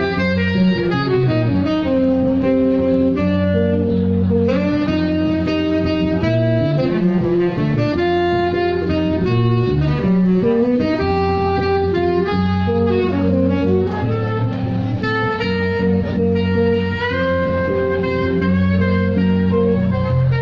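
Saxophone playing a jazz melody of held and moving notes over plucked string accompaniment and bass, live and unbroken.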